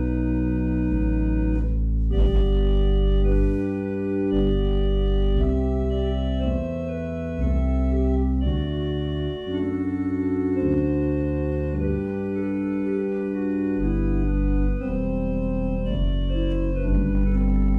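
Organ playing slow, sustained chords over deep bass notes, the harmony changing every second or two.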